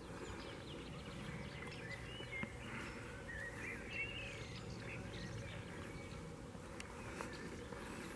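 Birds singing: a scatter of short whistled chirps and twittering phrases, over a low rumble with a hum that comes and goes.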